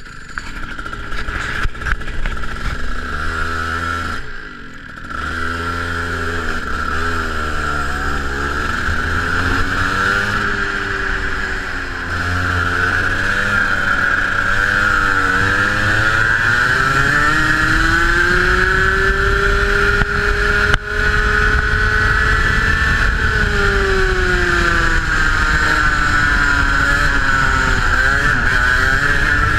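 125cc Rotax Max single-cylinder two-stroke kart engine heard onboard, revving up and down as the kart accelerates out of the pit lane and laps the circuit. The pitch climbs along the straights and falls off under braking into the corners.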